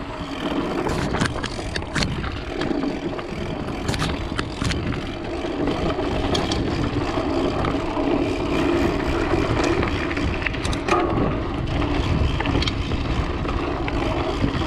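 A vehicle driving over a rough dirt track: the engine runs steadily under a rumble of tyres and body, with scattered knocks and rattles from the bumps.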